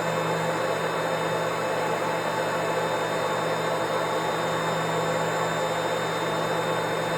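Vacuum cleaner running steadily: an even rushing air noise over a constant low motor hum, with a thin high whine.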